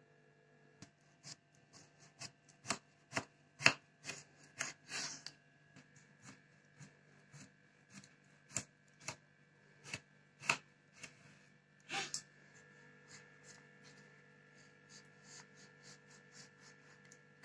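Small kitchen knife slicing a zucchini lengthwise on a wooden cutting board: irregular knocks of the blade against the board, one or two a second. The knocks turn softer and quicker after about twelve seconds.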